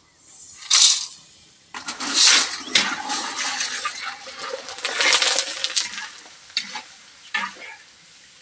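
Dry macaroni deep-frying in hot oil in a wok, to puff it into chicharon: the oil bursts into a loud crackling sizzle about two seconds in as the pasta goes in, with a metal strainer stirring and scraping in the pan. The sizzle dies back to scattered crackles near the end.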